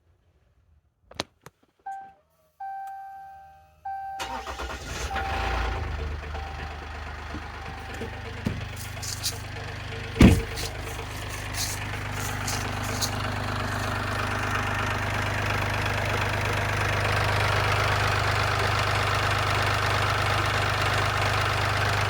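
A few short electronic tones, then the 2015 Ram EcoDiesel's 3.0-litre V6 turbodiesel starts about four seconds in and runs at idle with an abnormal noise from inside the engine, which the owner takes for a rod knock and which seems to come from something rotating. A single sharp knock stands out about ten seconds in.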